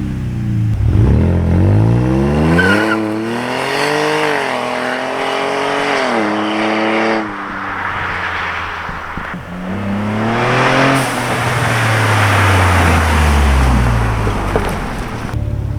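Lincoln MKZ 3.0T's twin-turbo V6 accelerating hard through its newly fitted electric exhaust cutouts: the revs climb, hold, drop off sharply about seven seconds in, then climb again and wind down to a steady low idle near the end.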